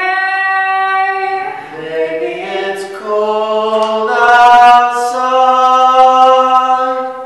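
Unaccompanied singing in long held notes by a young man, with a young woman's voice joining about four seconds in.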